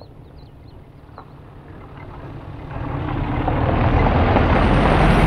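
A car approaching along a dirt road. Its engine and tyre noise rise steadily from about two seconds in.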